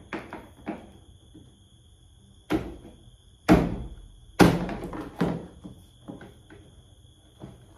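Hard plastic knocking and clicking as body panels are pushed and fitted onto a children's battery-powered ride-on toy motorbike: four loud knocks about a second apart near the middle, with lighter clicks before and after.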